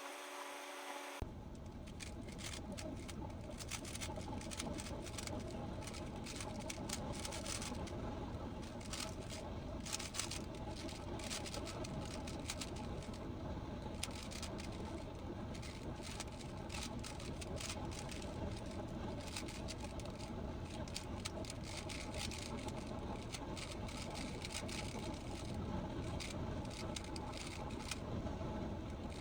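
Rubik's cube being turned, a dense run of quick plastic clicks and scrapes from the layers, over a steady background hum.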